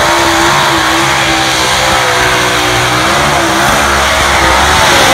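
Competition pulling vehicle's engine running under load, loud, its pitch wavering up and down.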